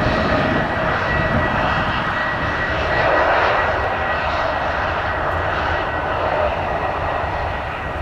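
Bombardier Global 7500 business jet's two GE Passport turbofans running at low taxi power as it rolls along the taxiway. It makes a steady rushing jet noise with a high whine held at one pitch.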